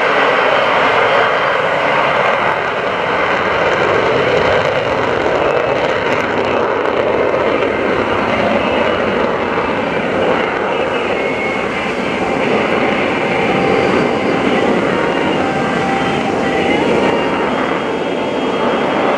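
F/A-18 Hornet jet engine noise as the jets fly past: a loud, steady rushing sound that swells and eases slightly.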